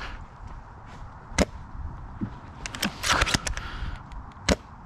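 Airsoft guns firing: a single sharp crack about a second and a half in, a quick cluster of cracks around three seconds, and another single crack near the end.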